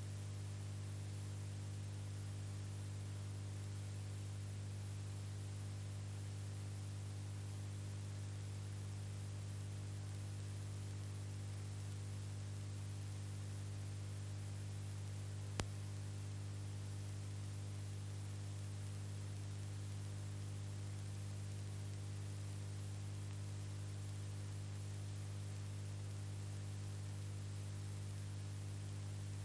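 Steady low electrical hum with a layer of hiss and one sharp click about halfway through: the noise floor of a silent 8mm film transfer, with no recorded sound.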